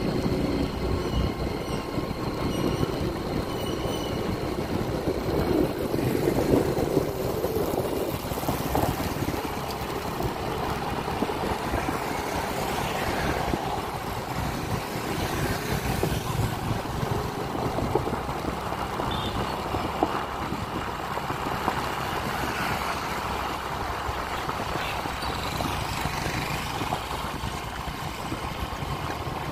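Engine and road noise of a vehicle driving along a city street, fairly steady.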